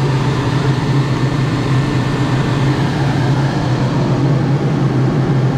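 Excel Mist Cannon M30 dust-suppression machine running: its large blower fan and high-pressure booster pump give a steady low hum under a rushing hiss of air and water mist.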